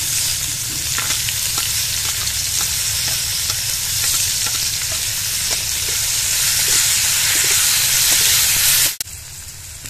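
Chopped onions sizzling loudly in hot mustard oil in a metal kadai, stirred with a flat spatula that scrapes faintly against the pan. The sizzle cuts off abruptly near the end.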